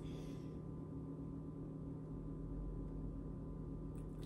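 Steady low electrical hum under quiet room tone, with a faint rustle at the start and a small click near the end.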